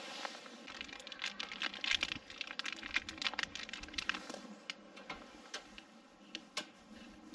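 Irregular light clicks, taps and rustles of hands handling small hardware and wiring. They are busiest in the first half and thin out toward the end.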